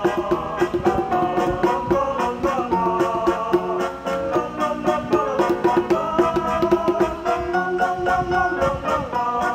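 Instrumental backing music with a steady beat: a repeated short-note figure under sustained melodic lines, with a fast regular tick on top.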